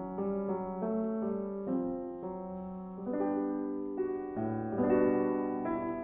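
Solo piano playing a slow run of sustained chords that change about every half second, growing louder around the middle.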